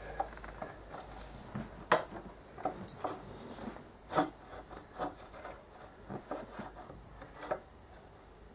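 Irregular small metal clicks, knocks and scraping as a steel mounting bolt is tried and started by hand in a motorcycle front brake caliper. The sharpest knock comes about two seconds in.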